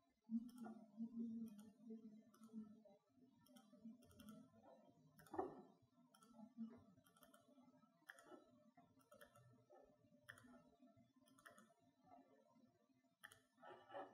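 Faint, irregular clicks from working a laptop, roughly one a second, with a somewhat louder knock about five seconds in, over a quiet room.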